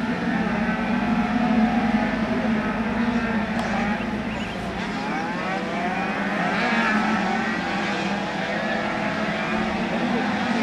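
A pack of 50cc two-stroke racing scooters running together, many engine whines rising and falling in pitch as they brake and accelerate through the corners, over a steady low drone.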